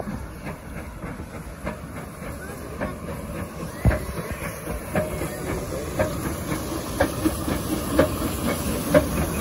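Saddle-tank steam locomotive No. 19 moving slowly on its own, hissing steam from its cylinder drain cocks, with a regular clank about once a second and one heavier thud about four seconds in.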